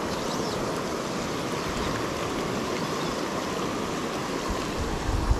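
Steady rush of a river's flowing water. A low rumble joins in near the end.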